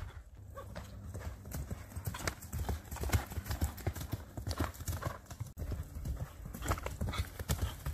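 Hoofbeats of a saddled horse setting off and cantering on dirt covered with pine needles: a quick, uneven run of hoof strikes.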